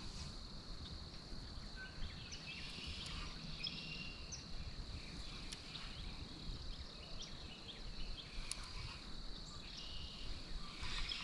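Quiet outdoor ambience by a pond: a steady high-pitched hum from a distant chorus of calling animals, with scattered short bird chirps and a few faint clicks.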